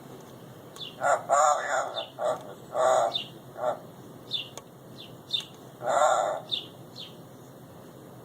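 Pet parrot calling in a run of short, voice-like utterances, with brief high chirps between them; the calls cluster in the first half and one more comes about six seconds in.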